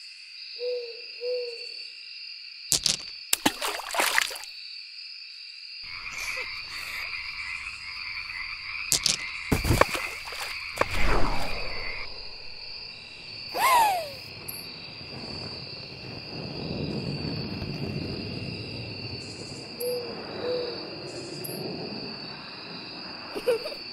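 Cartoon night ambience: an owl hoots a two-note "hoo-hoo" near the start and again about 20 seconds in, over a steady high chirring. Several sudden cartoon sound-effect strokes and whooshes come around 3 to 4 seconds and 9 to 11 seconds in, and a falling whistle comes in the middle.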